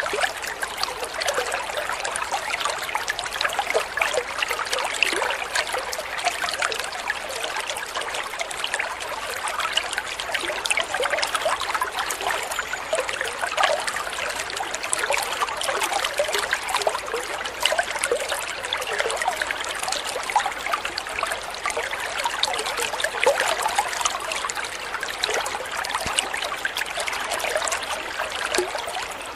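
Running water trickling steadily, full of small splashes and burbles, with no change throughout.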